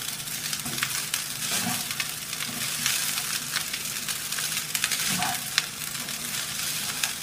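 Cooked rice stir-frying over a high flame in a kadai: a steady sizzle, with the spatula scraping and clicking against the pan as the rice is turned gently from the bottom up.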